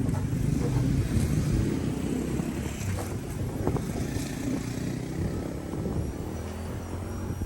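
2021 Jeep Wrangler Rubicon 4xe crawling slowly over a trail obstacle: a low steady drone from the vehicle, with a couple of short knocks partway through.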